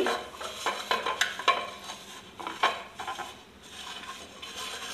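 Fingers rubbing oil around the cups of a non-stick appe (paniyaram) pan, with scattered light scrapes and clicks against the pan.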